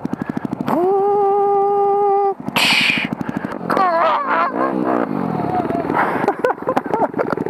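Dirt bike engines running at low revs. About a second in, a flat steady honk lasts about a second and a half. From midway on, the engines rev up and down as the bikes push through tall grass.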